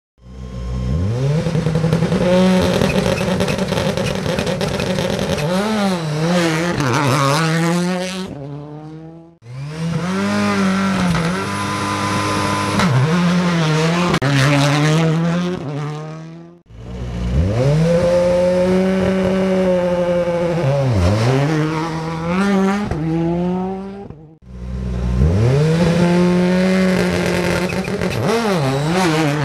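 Rally cars' turbocharged four-cylinder engines at full throttle, rising in pitch and dipping sharply at gear shifts and lifts off the throttle. Four separate passes, each starting abruptly after a cut.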